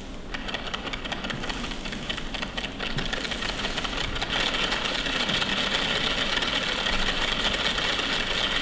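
Fast mechanical whirring and clicking from the small electric motors of a kinetic stage prop's robotic butterflies. It builds over the first few seconds, then runs steadily.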